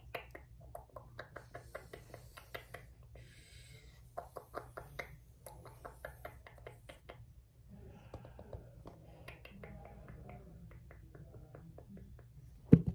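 Pen tapping and scratching on the cover of a paperback sketchbook: a quick run of small taps with short scribbles between them, then a softer scratching stretch. A loud knock comes near the end as the pen is brought up against the microphone.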